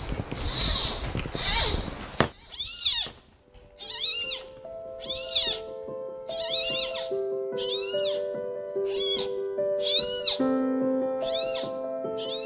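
Newborn giant panda cub squealing over and over, high cries that rise and fall in pitch about once a second. Soft background music with a slow melody plays under the cries.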